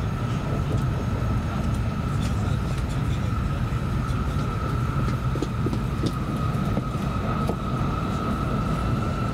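Cabin running noise of an N700S 8000-series Shinkansen at speed: a steady low rumble with a constant high whine above it and a few faint ticks.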